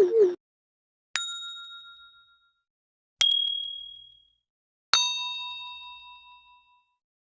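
Three separate bell-like dings, about two seconds apart, each a sharp strike that rings out and fades; each ding has a different pitch, and the last rings longest.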